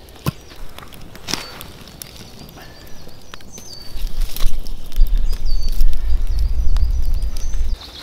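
Wood knocking as firewood is handled, with short whistled bird notes. From about four seconds in, a campfire crackles under a loud low rumble that cuts off suddenly near the end.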